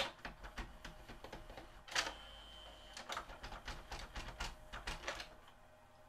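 JVC XL-M407 CD changer mechanism clicking and clattering as it moves to load another disc: a run of rapid clicks with two sharper clacks about two seconds apart and a brief high whine after the second, stopping about five seconds in.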